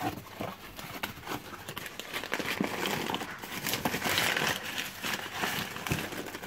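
Brown wrapping paper and a foam packing sheet crinkling and rustling as a hand digs through them in a cardboard box, loudest about four seconds in.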